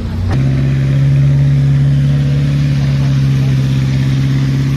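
Off-road 4x4 engine running under load at steady revs, holding one even note. There is a single sharp click about a third of a second in.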